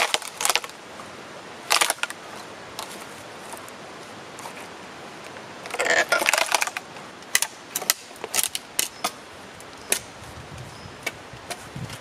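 A wooden block being split into a roof shingle with a froe: sharp woody cracks and snaps as the blade is levered through the grain, a burst of cracking about six seconds in, then scattered clicks and knocks.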